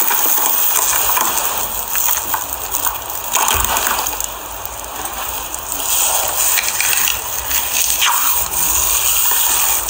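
Slime being squeezed and worked by hand: continuous wet squelching with many small clicks and pops.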